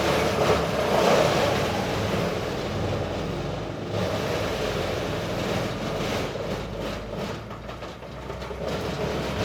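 Brush chipper running: a steady engine drone under a rough, noisy churn, changing character about four seconds in.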